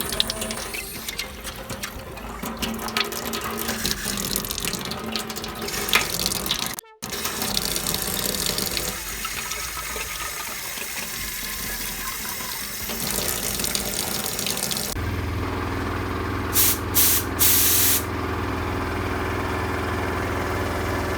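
Tap water running as a drilled coffee can is rinsed out. About fifteen seconds in, the sound changes to a steady low hum, with a few short, loud hisses a little later.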